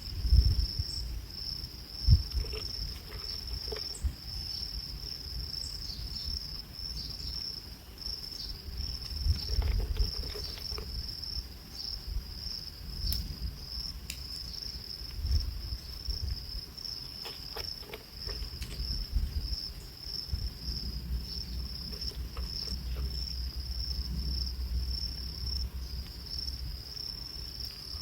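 A steady, continuous high-pitched insect trill from a chorus of insects in the background. Underneath runs a low rumble, with two sharp thumps near the start and a few softer knocks later.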